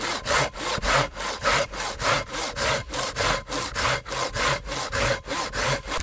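Hand saw cutting through a birch log in quick, even back-and-forth strokes, about three a second.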